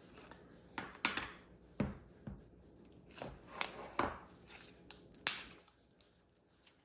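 Peachybbies slime being squeezed and stretched by hand, giving a string of sticky clicks and pops, the loudest a little past five seconds in.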